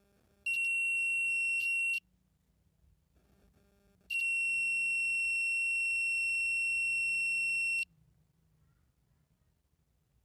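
Multimeter continuity buzzer beeping as the test probes touch points on the TV's circuit board: a short, steady, high beep of about a second and a half, then a longer one of about three and a half seconds.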